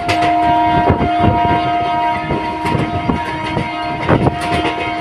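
MEMU electric train running along the track, its wheels clacking irregularly over the rail joints. A long steady multi-tone sound starts suddenly at the beginning and holds for about five seconds over the running noise.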